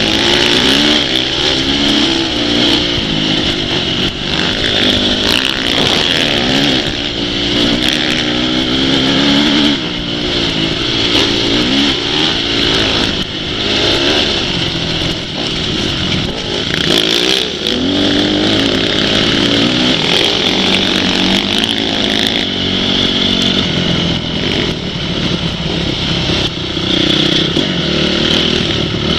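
Off-road motorcycle engines revving, the pitch rising and falling again and again through the gears and throttle changes, with scattered sharp clicks and rattles over a constant hiss.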